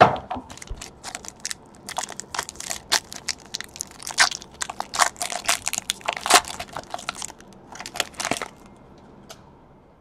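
Foil wrapper of a 2018 Topps Tier One baseball card pack crinkling and tearing as it is peeled open by hand, a quick run of sharp crinkles. It stops about eight and a half seconds in.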